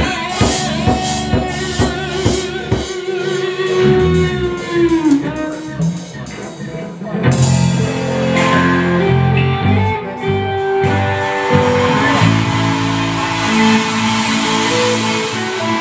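Live rock band playing: guitar over a drum kit. About five seconds in, a held note slides down in pitch. The playing thins briefly, then a cymbal crash about seven seconds in brings the full band back in.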